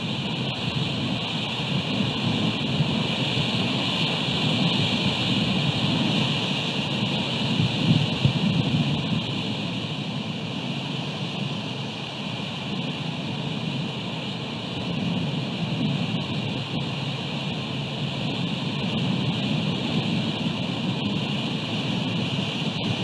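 Wind buffeting an outdoor camera microphone in rain: a low, gusty rumble that swells and fades, strongest about eight seconds in, over a steady hiss of rain and surf.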